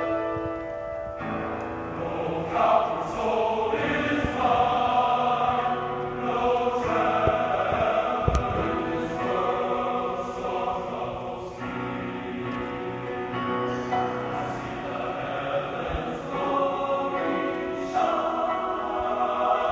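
Men's choir singing in several parts, holding chords that change every second or two.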